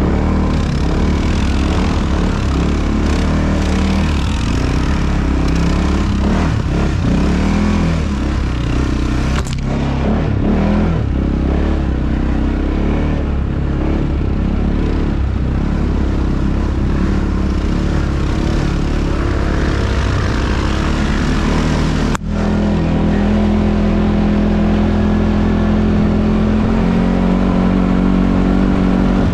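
ATV engine running under way as the quad is ridden, its pitch rising and falling with the throttle. About 22 seconds in it breaks off for an instant, then runs on at a steadier pitch.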